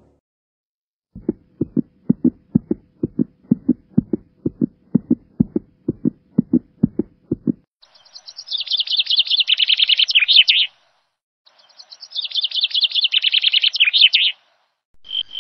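A run of evenly spaced low thuds, about three a second, for some six seconds, then two bursts of rapid, high bird chirping trills, each about three seconds long, with a short gap between them.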